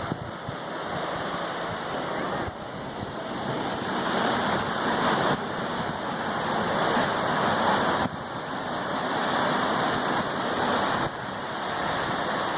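Pacific Ocean surf washing in a steady rush of noise, louder through the middle.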